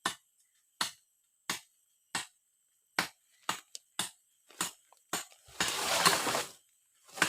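A series of sharp knocks, about one every two-thirds of a second, followed by a rougher, denser sound lasting about a second and a shorter one near the end.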